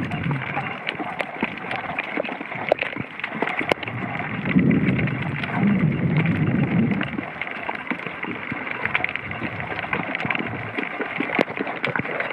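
Underwater ambience picked up by a submerged camera: a steady rush of water noise sprinkled with sharp clicks, with a louder low rumble of moving water from about four to seven seconds in.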